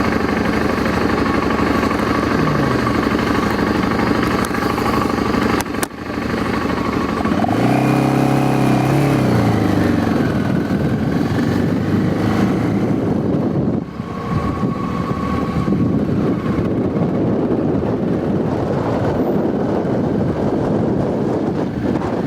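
Motorcycle engine running under way with wind rushing past. The engine's level dips briefly about 6 and 14 seconds in. A deeper pitched tone swells around 8 seconds in and falls away about two seconds later.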